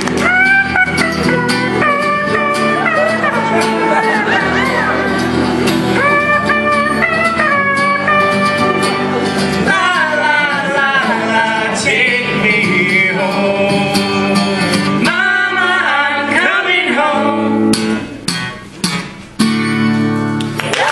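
Live band song: acoustic and electric guitars with a woman singing lead and a man singing along. Near the end the playing breaks into a few short, hard hits with brief gaps between.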